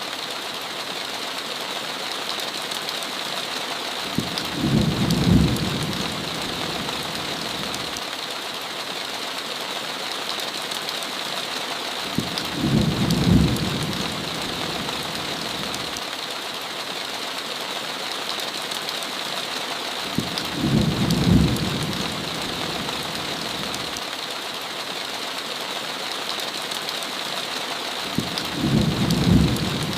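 Steady heavy rain hissing against a window, with a low rumble of thunder about every eight seconds, four times in all, each rumble lasting about two seconds.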